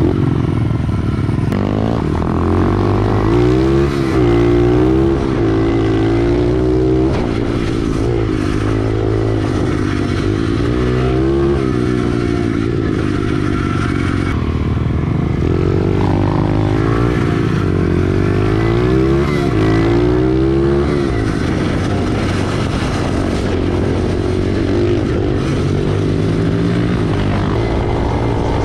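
SSR 110 pit bike's small single-cylinder four-stroke engine running under way, its pitch sweeping up and dropping back again and again as the throttle is opened and closed, then holding steadier for the last several seconds.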